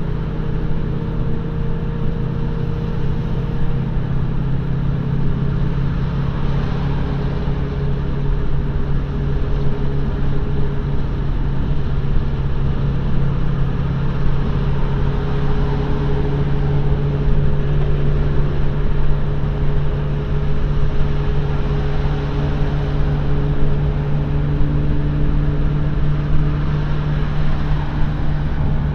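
Pontiac GTO's naturally aspirated 402-cubic-inch stroker V8 heard from inside the cabin at a steady freeway cruise. Its steady low drone holds the same pitch throughout, over tyre and road noise.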